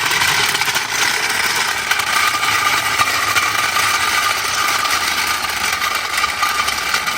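A brick being ground away by a spinning machine part: steady, loud grinding with a motor-like whine.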